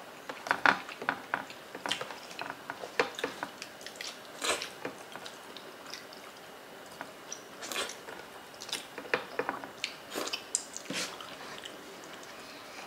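Close-miked eating sounds: chewing and scattered short, wet mouth smacks and clicks as two people eat rice and oxtail kare-kare by hand and lick their fingers.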